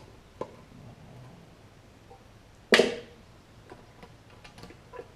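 Hand-tool and small-part handling during a carburetor removal. There is a faint click, then one loud sharp clack nearly three seconds in, then a few light ticks.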